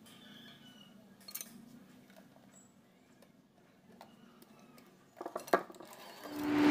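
Faint clinks and taps of a metal measuring cup and utensils against a glass mixing bowl, with a short cluster of knocks about five seconds in as a hand mixer is set into the bowl. Music fades in near the end.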